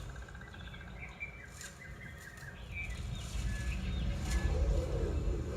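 Birds chirping in a forest soundtrack played back over home theater speakers, over a low bass rumble that swells in the second half.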